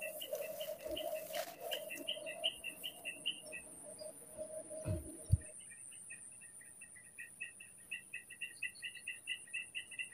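Insects calling from the grass: a steady, high, shrill pulsing trill throughout, with a fast run of repeated chirps that breaks off about halfway and then starts again. Two soft low thumps about five seconds in.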